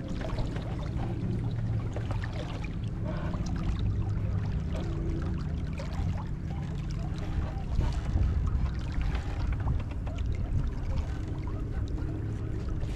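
Water rushing and splashing along the hull of a small sailing yacht under way, over a steady low rumble.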